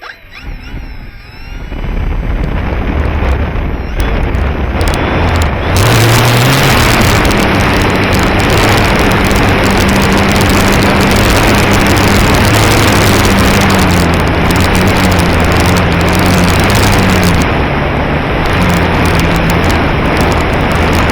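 Loud rushing wind noise on the microphone, building over the first few seconds and then holding steady, with a low hum underneath that wavers in pitch.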